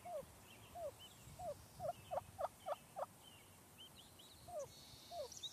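Wild turkey hen calling with a string of about ten short, downward-sliding clucks. A run of four louder, sharper ones comes in quick succession a little after two seconds in.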